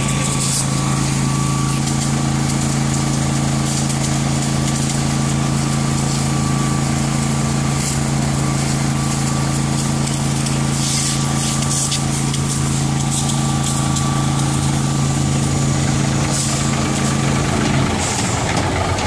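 Emergency vehicle engine idling at a steady pitch, a constant hum that stops about a second before the end.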